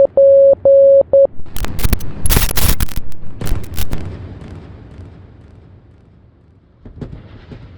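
A steady-pitched Morse code beep keys out the last dots and dashes of HELP and stops about a second in. A rapid volley of gunfire-like cracks and blasts follows, and its rumbling tail dies away over the next few seconds.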